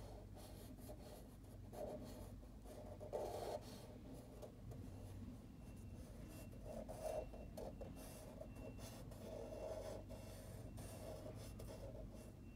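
Felt-tip marker drawing short strokes on paper, a faint irregular scratching.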